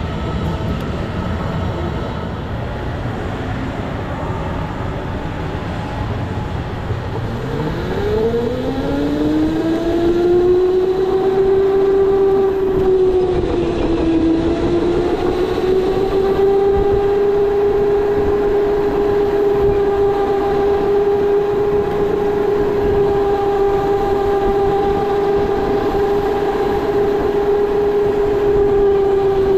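Electric go-kart motor, heard from the driver's seat: a low rumble while the kart waits, then a whine that rises quickly in pitch as the kart pulls away about a quarter of the way in and holds a steady high pitch at speed, dipping briefly near the middle.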